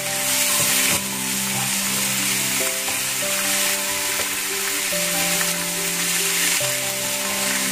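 Thinly sliced beef sizzling loudly in hot oil in a frying pan with onion and garlic, stirred with a wooden spatula.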